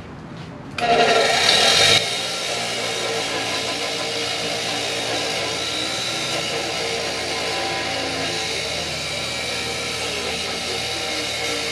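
Bench grinder's wire wheel brush scrubbing rust off a brake caliper: starts suddenly about a second in, loudest for the first second, then a steady whirring, brushing noise.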